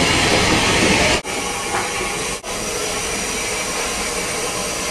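Bulleid Battle of Britain class light Pacific steam locomotive 34070 Manston hissing steam. The hiss is loud for about a second, breaks off sharply, then goes on as a quieter steady hiss.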